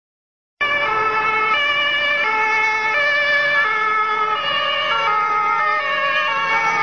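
German police two-tone siren (Martinshorn) sounding, high and low tones alternating roughly every 0.7 seconds; it cuts in suddenly about half a second in.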